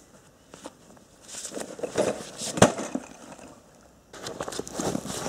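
Footsteps crunching through dry leaves and twigs on a forest floor, in two spells, with one sharp crack about two and a half seconds in.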